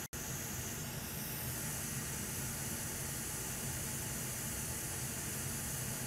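Hot air rework station nozzle blowing a steady hiss of hot air onto a circuit board chip to melt its solder.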